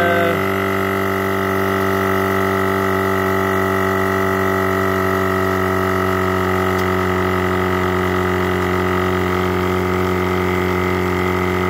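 Twin-cylinder 12-volt portable tyre inflator (300 W, 60 L/min) running, a steady motor-and-piston drone as it pumps up a car tyre from zero pressure.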